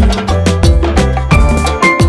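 Upbeat background music with a steady percussion beat and a bass line.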